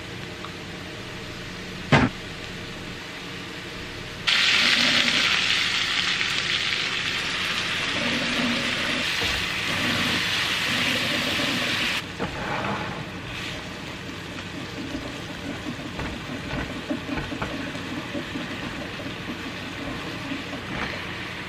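Food frying in a nonstick pan: a low bubbling of butter and oil, a single sharp knock about two seconds in, then a loud sizzle from about four seconds that drops off sharply after about eight more. Quieter sizzling follows as chopped mushrooms are stirred and turned with a spatula.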